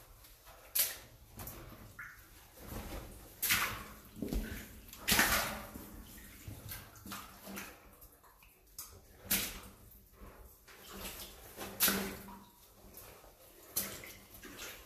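Footsteps splashing and sloshing through shallow water on the floor of a narrow rock mine tunnel, a splash every couple of seconds at an uneven pace, the loudest about five seconds in.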